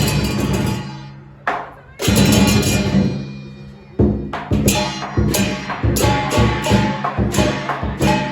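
Southern Chinese lion dance percussion: drum, gong and cymbals struck together. There are a few heavy crashes that ring out for a second or two, then a quicker beat of strikes from about halfway.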